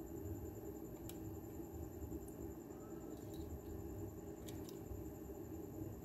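Quiet workbench room tone with a faint steady hum, and a few faint clicks from a soldering iron and solder wire being worked on a circuit board.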